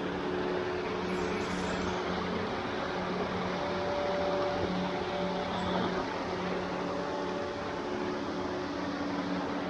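Steady rushing of a waterfall cascading over rocks, an even unbroken noise.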